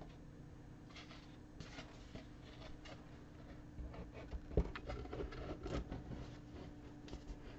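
Hands handling a half-inch MDF back panel laid onto a wooden night-light frame: light rubbing and small taps, then one sharp knock about four and a half seconds in, followed by a short spell of rubbing and shifting as the board is pressed and settled into place.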